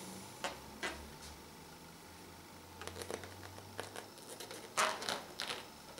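Latex balloons handled and turned in the hands: soft rubbing and crinkling, a few light rustles in the middle and a louder one near the end.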